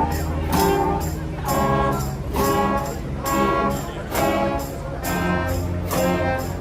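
Marching band playing: brass chords struck together over drums and cymbals, in punches about once a second.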